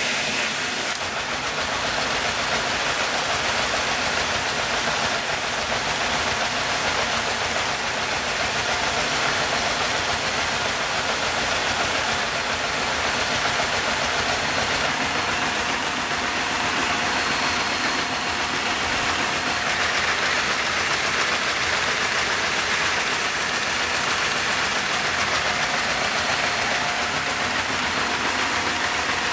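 A vacuum cleaner running steadily, drawing air through a Lego Technic inline-four vacuum engine that runs slowly with its superchargers engaged.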